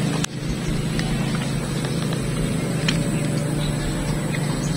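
An engine running steadily at a constant pitch, with a brief drop about a third of a second in.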